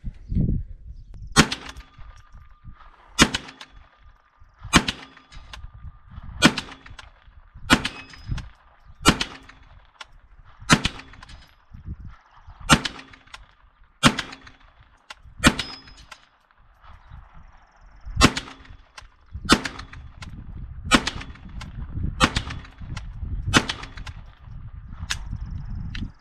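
A .22 LR AR-15-style semi-automatic pistol fired shot by shot, about fifteen shots roughly one every second and a half, with a short gap in the middle. A faint ringing tone lingers after many of the shots.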